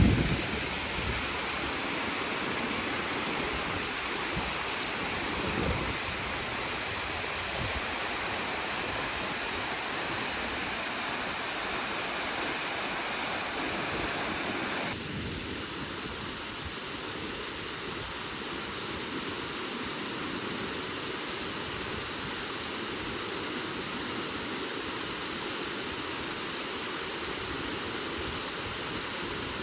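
Nachi Falls, a tall waterfall, sending a steady, even rush of falling water. About halfway through, the sound changes abruptly and turns thinner and hissier.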